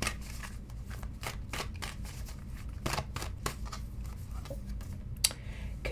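A deck of astrology cards being shuffled and handled: irregular soft card snaps and rustles, several a second.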